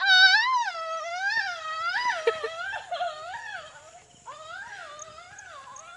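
A high-pitched, wavering wailing cry that swoops up and down in pitch, loudest at the start. It breaks off briefly about four seconds in, then carries on more quietly.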